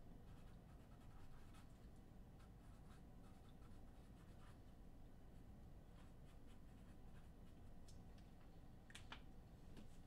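Near silence: faint room tone with a few soft clicks, the clearest near the end.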